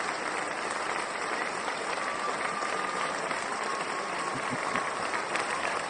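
A crowd applauding, a dense, steady clapping at even level.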